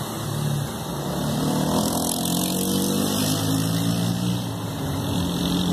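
Traxxas TRX-4 RC crawler's brushed electric motor and geared drivetrain whining as it creeps along a wooden plank. The pitch rises and falls with the throttle.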